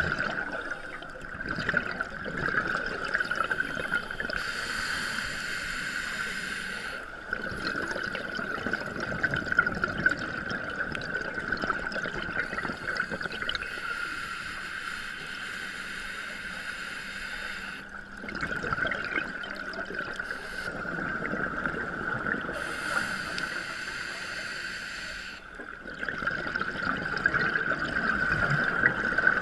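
Scuba regulator breathing heard underwater: slow cycles of hissing inhalations and gurgling exhaust bubbles, repeating every eight to ten seconds or so, over a steady high-pitched whine.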